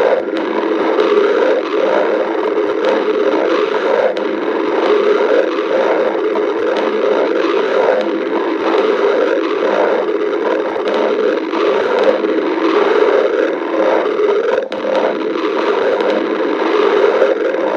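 A hungry person's stomach growling: a continuous gurgling rumble that pulses about twice a second.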